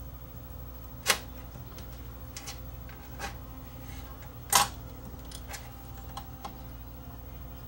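Small sharp clicks of pliers and metal parts as a spring is fitted onto a cassette deck's mechanism: two louder clicks about a second in and about four and a half seconds in, with a few fainter ticks between.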